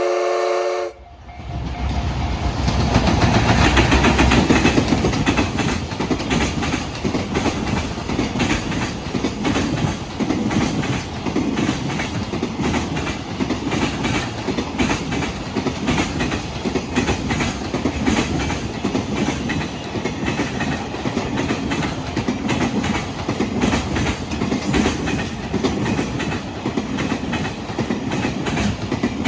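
Freight train running past at close range: a continuous heavy rumble with rapid clickety-clack from the wheels hitting the rail joints. It starts about a second in and is loudest a few seconds later.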